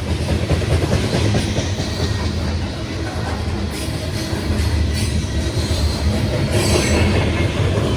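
Loaded coal train's cars rolling slowly past: a steady heavy rumble of wheels on rail, with a few irregular clanks.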